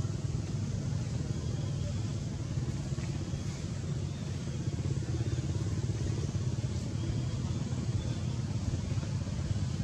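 A steady low rumble that runs evenly, with no distinct calls or knocks standing out.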